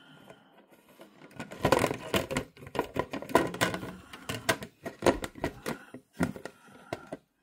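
Plastic parts of a cotton candy machine being handled: a run of irregular clicks, knocks and light rattles.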